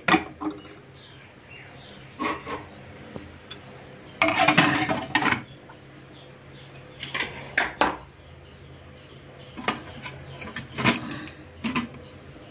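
Spoon clinking and scraping against an idli plate as idli batter is spooned into its moulds, in short clattery bursts every second or two with a longer run of scraping about four seconds in.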